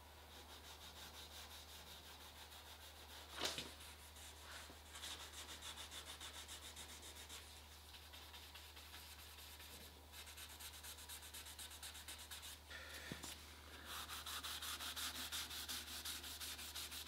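Sandpaper rubbed by hand back and forth over the clear coat of a car's painted front wing, faint rhythmic strokes about four a second that grow louder near the end: the soft edge between old and new clear coat being sanded level before polishing. A single short knock about three and a half seconds in.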